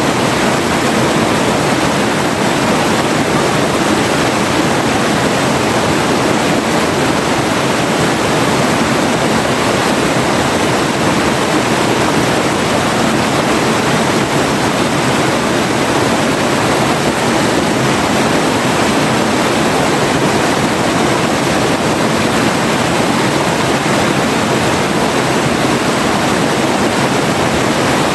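River water rushing over rocks: a loud, steady, even rush with no breaks.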